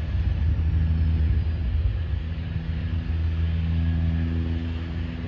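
Jet airliner engines rumbling steadily across the airfield, a continuous low rumble with a faint high whine that falls in pitch over the first couple of seconds.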